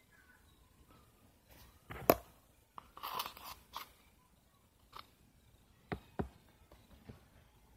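Handling noise from a plastic Elmer's glue bottle being squeezed and gripped close to the microphone: a sharp knock about two seconds in, a crackling scrape around three seconds, and a couple of clicks near six seconds.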